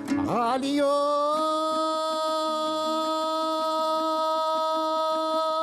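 A singer slides up into one long, steady held note in a Kazakh folk song, over a soft, evenly strummed plucked-string accompaniment.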